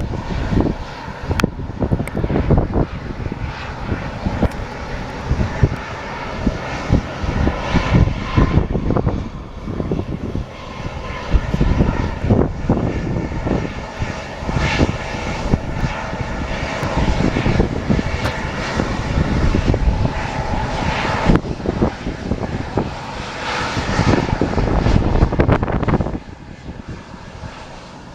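An airplane's engines running, heard through heavy wind buffeting on the microphone. The sound drops off sharply near the end.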